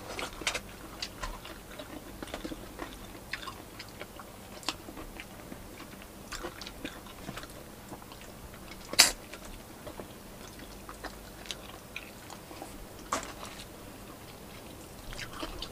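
People eating by hand: chewing and mouth clicks, heard as scattered small clicks. One sharper click about nine seconds in is the loudest sound.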